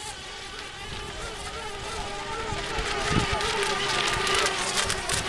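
Several electric RC racing boats buzzing with a high, wavering whine as they race, getting louder as they come nearer.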